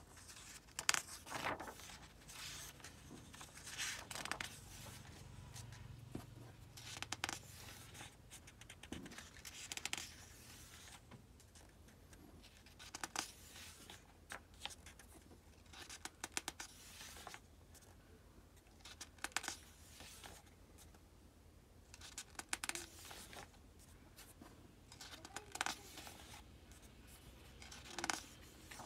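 Pages of a hardcover book turned by hand one after another, a short papery swish every two to three seconds.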